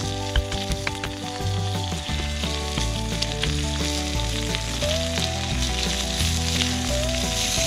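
Food frying and sizzling in a steel griddle pan over an open campfire, with a few sharp clicks near the start, under background music with changing bass notes.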